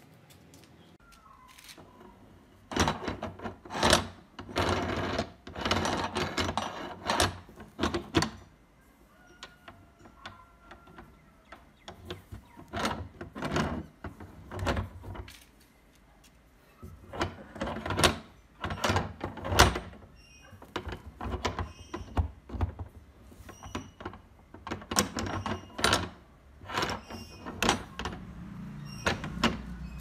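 Repeated metal clanks and knocks from a homemade rebar door latch being handled and worked, its steel bolt sliding and striking its guides, in bursts with short pauses.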